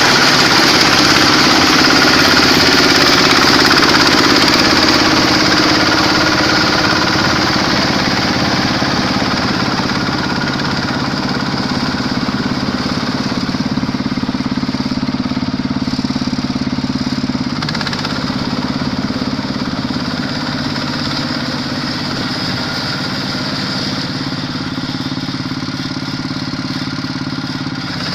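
Quick H-140R combine harvester's Kubota diesel engine running steadily, growing slightly quieter after about five seconds.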